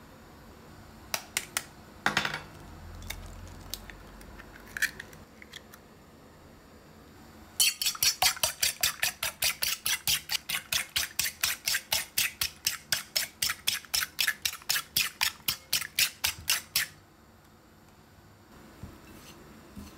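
A fork beating eggs in a ceramic bowl: fast, even clinks of metal on the bowl, about five a second, for some nine seconds, after a few separate sharp knocks near the start.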